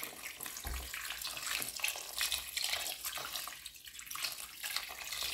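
Water pouring into a pot of soup on the stove, a continuous splashing trickle that eases briefly around the middle.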